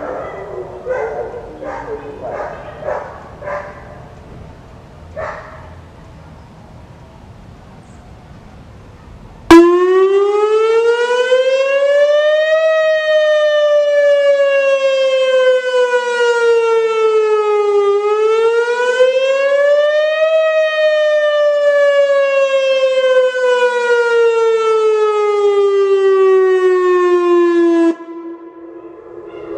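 Whelen WPS-2909 electronic outdoor warning siren sounding a two-cycle wail test: it starts abruptly about a third of the way in, rises, falls slowly, rises again and falls, then cuts off just before the end. The wail follows the voice message that announces a test.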